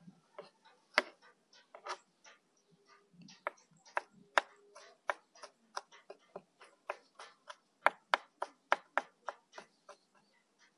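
Knife chopping food on a cutting board: a run of quick, uneven strokes, about three a second, stopping shortly before the end.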